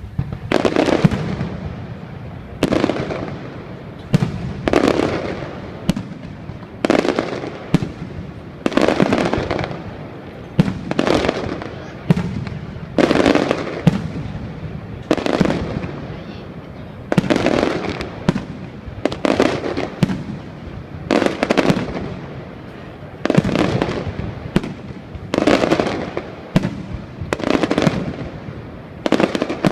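Fireworks going off in a long, even series, one loud report every second or two, each fading out over about a second.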